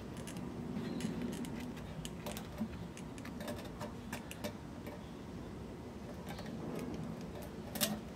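Scattered small clicks and taps of a plastic motorcycle fuel pump assembly being handled and seated into the fuel tank opening, with a sharper click near the end, over a faint low hum.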